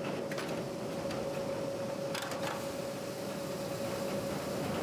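Malt mill running as it crushes barley malt: a steady mechanical hum with a thin constant whine over it and a few light clicks.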